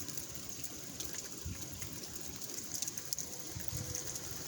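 Freezing rain falling: a steady soft hiss with faint scattered ticks of ice pellets striking surfaces.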